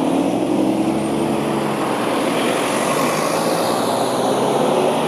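Street traffic: motor vehicle engines running in slow-moving traffic, a steady engine drone with a faint pitch shift in the first couple of seconds.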